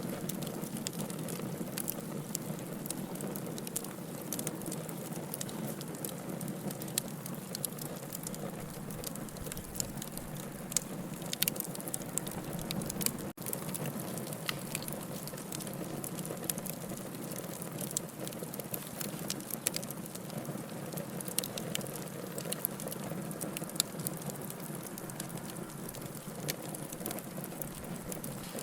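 Campfire burning, the wood crackling with frequent sharp, irregular pops over a steady hiss, with a momentary break in the sound about halfway through.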